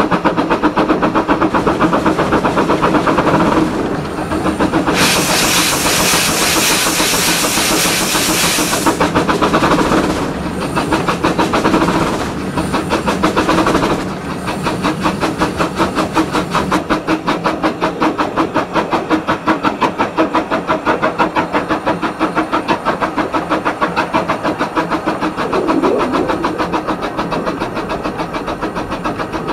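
Mariloo, a 12.25-inch gauge steam locomotive, running under steam with a rapid, steady exhaust beat and the rattle of the train on the rails. About five seconds in, a loud hiss of steam lasts about four seconds.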